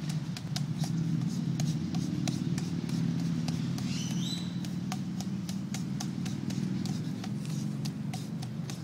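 Forearms and fists striking a tree trunk in a quick, steady series of knocks, about three a second, over a low steady rumble of background noise.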